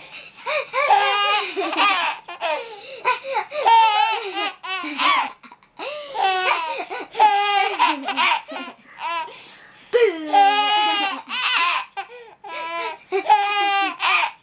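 Baby laughing in repeated high-pitched bouts, each a second or two long, with short breaks between them.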